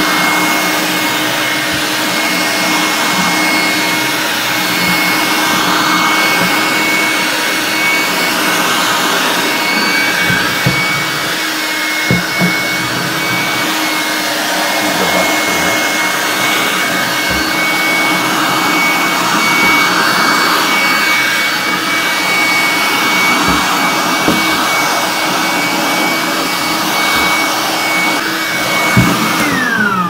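Altus AL 767 7.2-volt cordless handheld vacuum cleaner running steadily, a constant whine over rushing air, with a few sharp ticks as spilled bulgur grains are sucked in. Switched off just before the end, its whine falling as the motor spins down.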